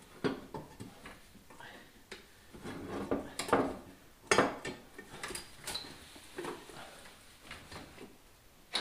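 Hand tools and metal parts clicking, clinking and knocking as an LS engine's exhaust manifold and pipe are fitted into a tight engine bay, with a few louder clanks in the middle.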